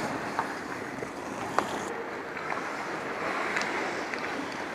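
Ice hockey skates scraping and carving across the ice in a steady hiss, with a few sharp clacks of sticks and puck, the loudest about a second and a half in.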